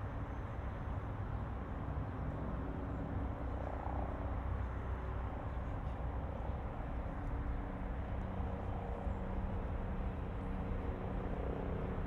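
Steady low rumble of a running engine with a constant hum, over a wash of city traffic noise.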